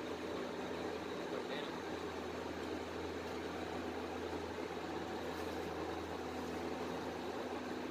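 Injection molding machine running, a steady hum with a constant low drone.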